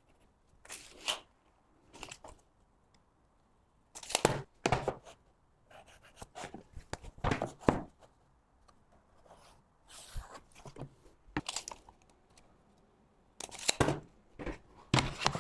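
Hand work on building materials: short, irregular noisy strokes in clusters with pauses between them.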